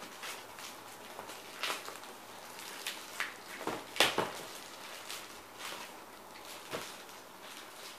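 Scissors snipping through a plastic courier mailer bag, with the plastic crinkling and rustling in irregular short crackles as it is cut and pulled apart. The sharpest crackle comes about four seconds in.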